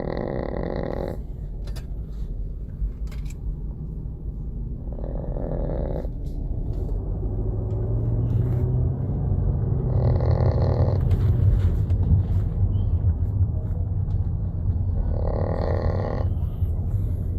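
Small dog snoring: a snore about every five seconds, each lasting about a second, over a steady low rumble.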